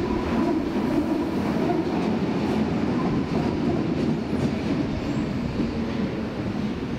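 Berlin U-Bahn small-profile train on the U2 line running along the track: a steady rumble of wheels on rail with some clickety-clack, easing slightly near the end.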